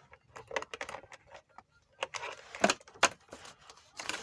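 Multimeter test leads being handled: a run of irregular light clicks and rattles from the plastic probes and their cables.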